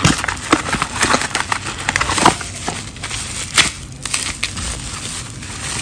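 Plastic bubble wrap and cardboard packaging being handled and pulled off by hand, crinkling with irregular crackles, thickest in the first couple of seconds and again about three and a half seconds in.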